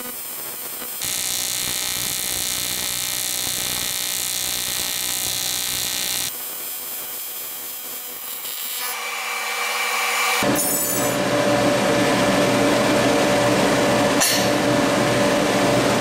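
AC TIG welding arc on thick aluminium buzzing and hissing for about the first ten seconds, stepping down in level partway through as the amperage changes, on a part already hot, where the bead comes out shiny. The arc then stops, and a steady machine hum from the welder's cooling fan carries on, with a single click near the end.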